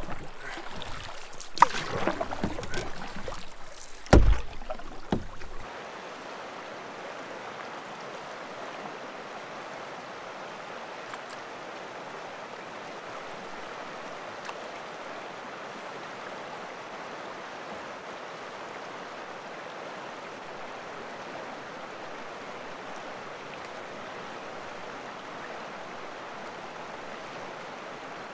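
Knocks and clatter against a canoe hull in the first few seconds, the loudest a single knock about four seconds in; then a steady rush of flowing creek water.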